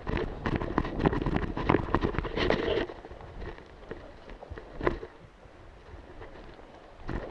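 Irregular knocks and rustling of a player moving on foot in airsoft gear, with wind on the microphone. Dense and loud for the first three seconds, then quieter with a few scattered knocks.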